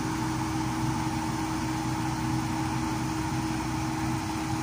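Komatsu PC70-8 excavator's diesel engine running at a steady speed, a constant hum over mechanical noise. Its pitch begins to drop right at the end.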